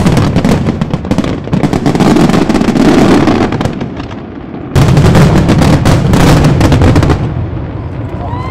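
Dense barrage of fireworks shells bursting in quick, overlapping bangs. It eases off, then a sudden loud fresh volley comes a little past halfway and fades near the end.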